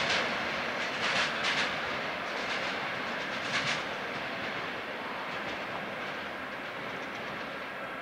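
Freight train wagons rolling away over the tracks, wheels clicking over rail joints in a few short clusters. The rolling noise slowly fades as the train recedes.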